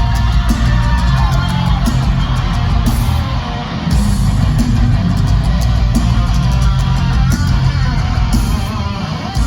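Live rock music played loud through a concert PA, with distorted electric guitar, bass and drums, recorded from the crowd.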